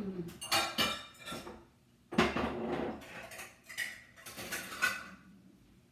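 Dishes clattering as a bowl is taken out from among other dishes: three bursts of clinks and knocks, the loudest about two seconds in.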